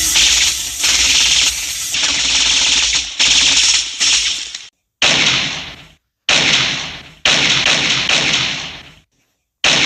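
Film gunshot sound effects: a quick string of overlapping shots with hissing tails, then, about halfway through, single shots a second or more apart, each with a sharp crack that decays away.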